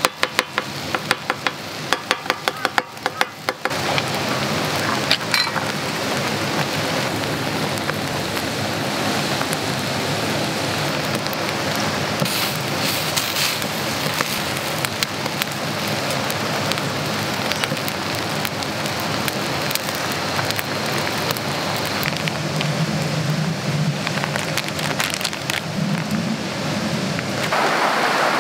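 A metal spatula chopping rapidly against a hot iron griddle for the first few seconds, then monja batter sizzling steadily on the griddle, with occasional scrapes of a spatula. Shortly before the end it gives way to a louder steady hiss of a wood campfire burning.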